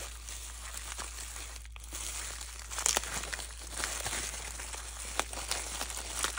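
Bubble-wrap and clear plastic packaging crinkling and crackling as it is handled and turned over, with a few sharper crackles about halfway through.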